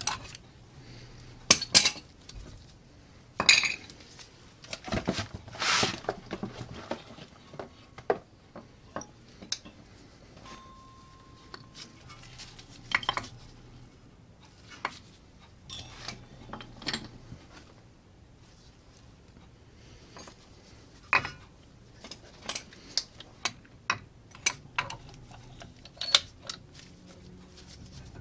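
Metal clinks, knocks and scrapes from a brake caliper and a screw-type piston-retraction tool being handled and fitted, with a few longer scraping rubs in the first six seconds and a dense run of sharp clicks near the end.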